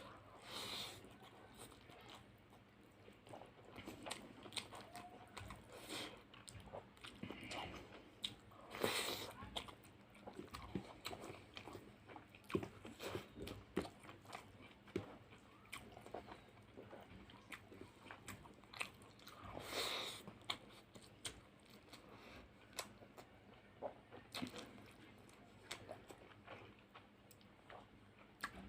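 Close-up eating of fish curry and rice: steady wet chewing and mouth smacks, with a few louder bursts about a third and two thirds of the way through.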